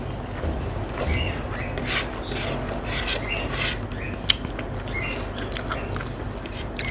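Close-up eating sounds: chewing and lip smacks on a mouthful of rice and curry, and fingers mixing and squishing rice on a plate, with one sharp click about four seconds in.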